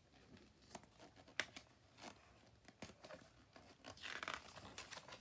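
Paper rustling and crinkling as a picture book's page is handled and turned, with a few small clicks and a longer rustle about four seconds in.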